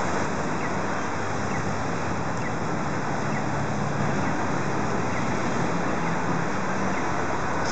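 Steady street traffic noise with a low engine hum underneath and a faint high tick repeating about once a second.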